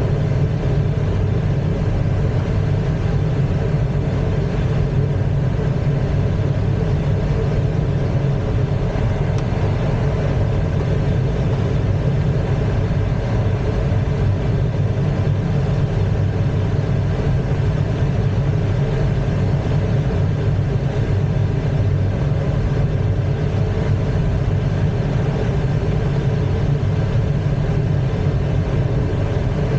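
Steady rumble and rushing air inside an ASK-21 glider's cockpit in flight, unchanging throughout, with a few faint steady tones above it.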